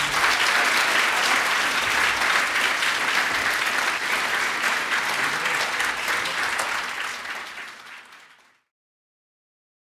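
An audience applauding, many hands clapping together. The applause fades out about eight seconds in.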